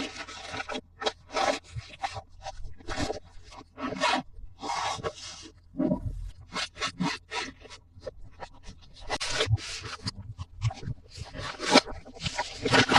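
Hands unpacking and handling toys and their packaging: irregular scraping, rubbing and light clicks. A quick run of clicks starts near the end.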